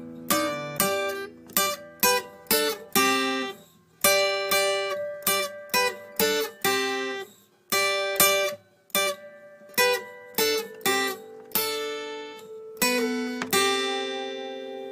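Solo acoustic guitar music: chords strummed in short, clipped strokes with brief gaps between them. From about 13 seconds in, a chord is held and left ringing.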